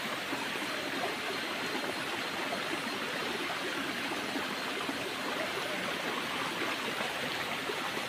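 Shallow rocky stream rushing steadily over rocks and small cascades.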